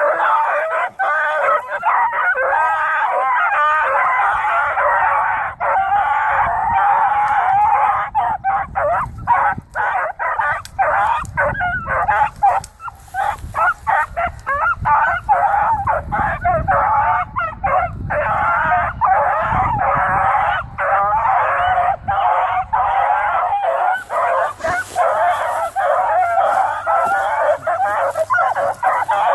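Several hounds baying together without pause, their voices overlapping in a steady chorus of howling cries.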